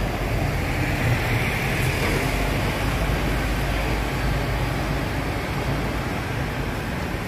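Mercedes-Benz Citaro diesel city bus running as it drives slowly up to the stop: a steady low engine rumble with road noise.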